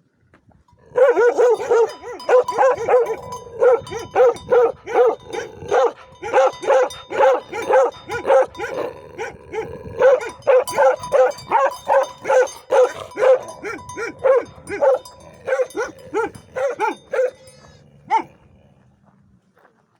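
A dog barking over and over in a rapid, steady run of fairly high-pitched barks, breaking off near the end with one last bark.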